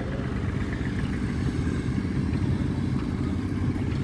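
An engine running steadily: a low, even rumble that does not change.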